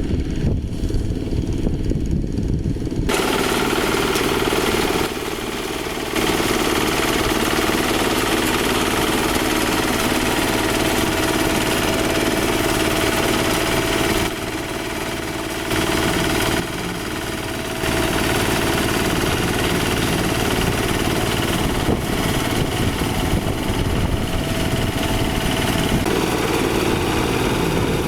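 Quick H-140R light rice harvester's small diesel engine running steadily with its machinery working. About three seconds in, a brighter, noisier mechanical whir joins the engine, and the level dips briefly a few times.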